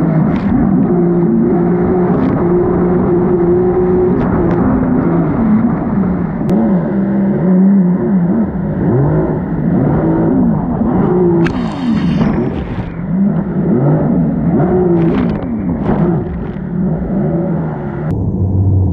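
Four-stroke Yamaha Superjet stand-up jet ski engine running under throttle, its pitch rising and falling again and again as the throttle is worked, over a steady rush of water and wind.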